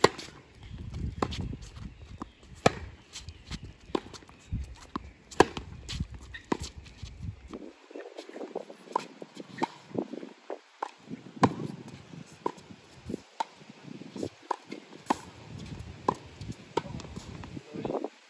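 Tennis rally on a hard court: sharp pops of rackets striking the ball, the loudest about every two and a half seconds, with fainter bounces, far-end hits and footsteps between. A low rumble runs under the first half.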